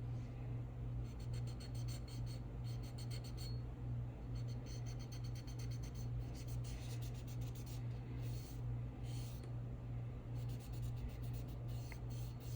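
Solvent-dampened rag rubbed over a pistol slide in quick, light back-and-forth strokes, wiping excess color-fill paint out of the engraving, in bursts with short pauses; a steady low hum sits underneath.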